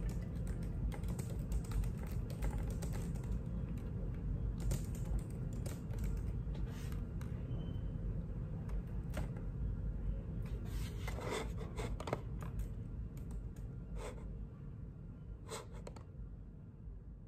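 Typing on a laptop keyboard: irregular key clicks, coming in quicker clusters in the second half, over a low steady hum.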